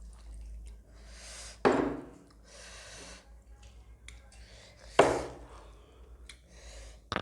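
Close-up eating noises from a meal, with two sudden loud clacks about three seconds apart, each ringing briefly, amid softer rustling mouth and dish sounds.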